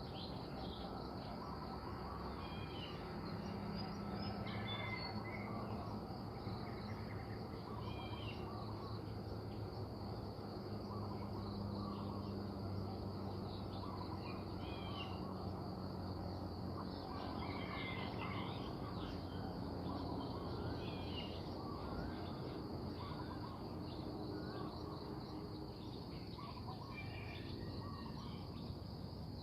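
Small birds chirping now and then over a steady drone of insects, with a faint low hum underneath for part of the time.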